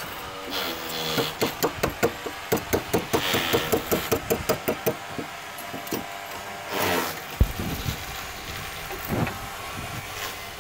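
Quick run of sharp tool knocks during marble-slab fixing, about four or five a second for some three seconds, then a short scrape and one heavy thump.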